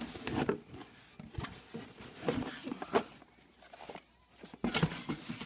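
Cardboard handling: a boxed TIG torch being lifted and slid out of a cardboard shipping carton, with irregular scrapes and light knocks, quieter for a moment about four seconds in.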